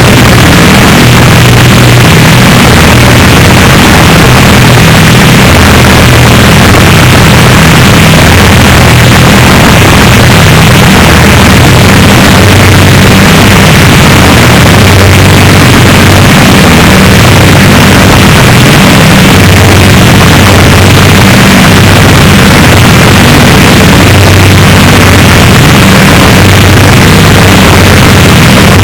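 Harsh noise music: a constant wall of loud distorted static over a low droning hum, with no beat or breaks.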